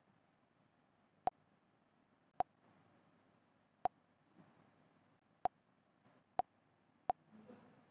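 Six short, sharp clicks spaced about a second apart, irregularly: taps on a smartphone touchscreen while a message is sent and the phone switches between apps.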